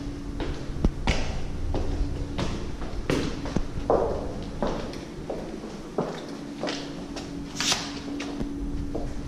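Footsteps on a hard floor, irregular knocks roughly every half second to second, with a faint steady hum under parts of it and a short scrape about three-quarters of the way through.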